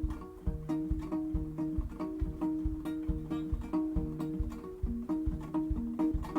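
Instrumental passage on a steel-strung percussion guitar, an old classical acoustic fitted with a tin cigar-box treble soundboard, cast-iron bass horn and pickup, picking a repeating old-time banjo melody over a steady low thumping beat.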